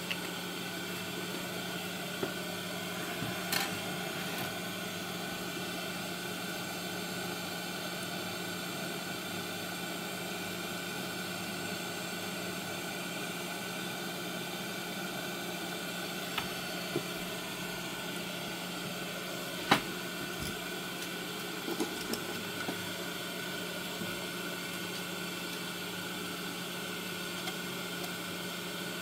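Steady whirring hum and hiss of a small electric fan, with a handful of light clicks and taps.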